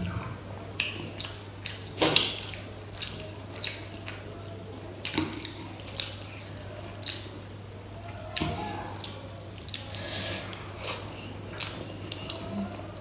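Close-miked eating sounds: fingers squishing rice and kadhi together on a steel plate, with wet chewing and lip smacks, as many short clicks; the loudest is about two seconds in. A steady low hum runs underneath.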